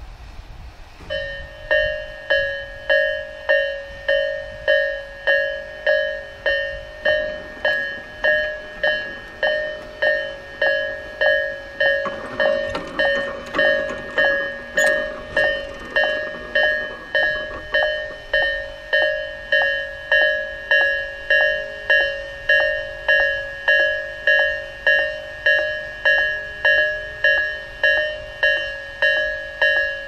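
Japanese railway level-crossing alarm of the Tobu Isesaki type (low tone, slow version) starting about a second in and ringing a steady repeated electronic ding, about three strikes every two seconds, each dying away: the crossing is warning of an approaching train.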